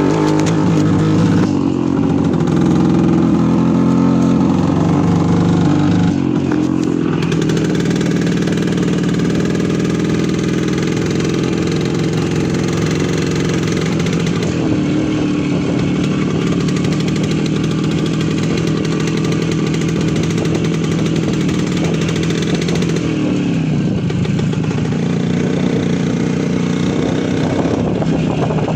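Voskhod 3M motorcycle's single-cylinder two-stroke engine running, louder and shifting in pitch for the first six seconds, then holding steady, with a change in engine pitch about three-quarters of the way through.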